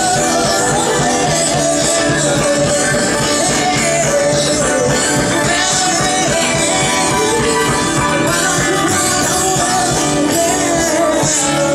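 Live band playing a rock-style song with a lead singer, run through at a sound check.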